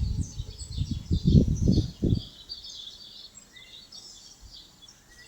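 Birds chirping and calling together, a dense chorus of short high chirps. A low rumbling noise sits under them for about the first two seconds, then dies away.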